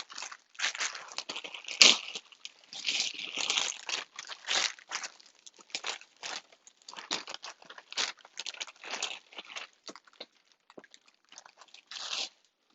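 Packaging crinkling and rustling in irregular bursts as an item is handled and unwrapped by hand, with one sharp crack about two seconds in.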